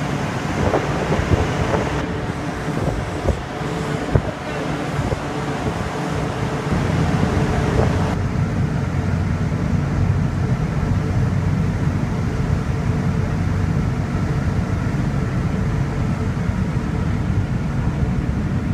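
The ferry's engines running with a steady low drone, under wind and sea noise on the open deck, with a few sharp knocks in the first few seconds. The hiss eases about eight seconds in, leaving mostly the engine hum.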